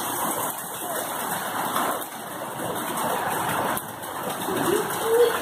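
Heavy rain and running floodwater making a steady, even rushing noise.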